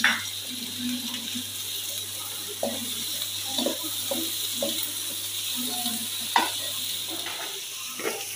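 Shredded cabbage, scrambled egg, green chilli and tomato sizzling in hot oil in a wok while a wooden spatula stirs and scrapes them. There is a run of quick scrapes in the middle, and there are sharp knocks at the start and about six seconds in.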